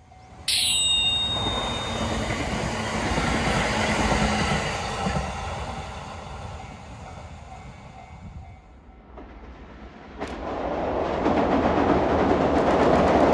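A train running on the line. About half a second in there is a sudden sharp, high ringing sound that fades quickly, followed by a rumble that dies away. From about ten seconds in, a second rush of train noise grows steadily louder.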